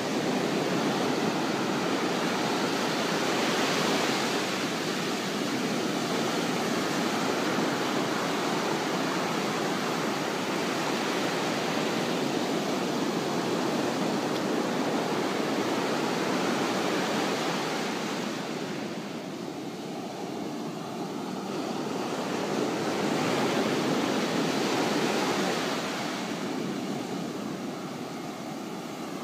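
Ocean surf breaking and washing up a sandy beach: a steady rushing noise that swells and eases. It drops back for a few seconds about two-thirds of the way through and again near the end.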